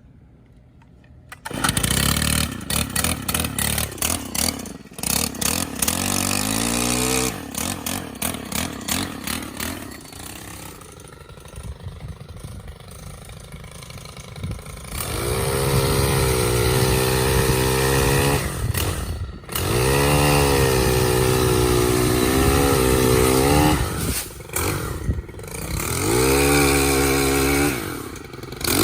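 Stihl HT 103 pole saw's gas engine starting from cold on choke, catching about a second and a half in and running unevenly at first. It settles to a lower idle, then from about halfway it is revved up and down repeatedly.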